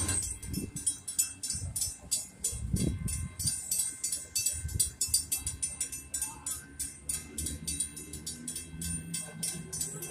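Railroad crossing warning bell ringing in rapid, evenly spaced strikes while the signals are active, with cars passing on the road.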